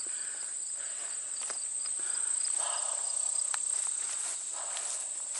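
Steady high-pitched insect trill, with a second insect chirping in a quick even pulse during the first second or two. Footsteps rustle through grass and brush under it.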